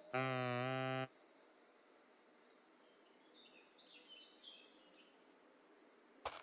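A loud, steady, buzzy horn-like tone lasting about a second. After it, faint high bird chirps over a quiet garden background.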